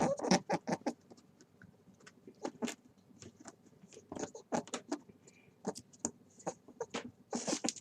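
A rabbit making quick, irregular soft taps and clicks, a few every second.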